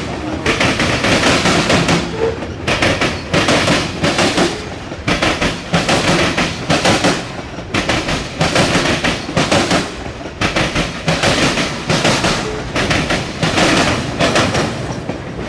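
Freight cars of a long mixed freight train rolling past, their wheels clattering over rail joints in a steady, repeating clickety-clack, a few clacks a second.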